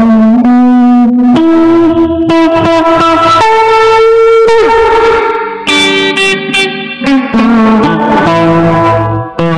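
Electric guitar, a Les Paul-style solid-body, playing a slow lead line of single sustained notes. The pitch steps to a new note every second or two, with slight vibrato on some held notes.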